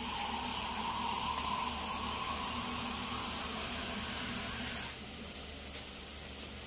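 Steady hiss of a pot of fish sizzling on the stove, with a little broth just added, over a low steady hum; the hiss eases slightly about five seconds in.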